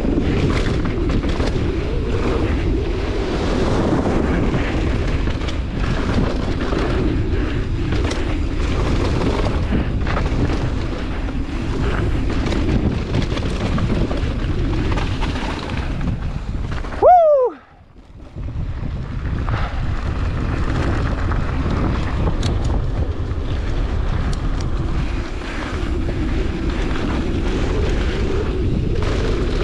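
Wind rushing over the camera microphone and the rattle of a mountain bike riding down a rough bike-park trail. About 17 seconds in there is a short, loud squeal that falls in pitch, and then the sound almost cuts out for about a second.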